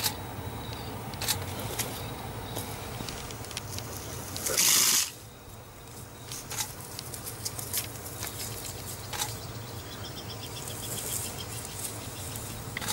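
Outdoor bush ambience under a steady low hum, with faint insect-like chirping, scattered light clicks, and one brief loud rushing noise about five seconds in.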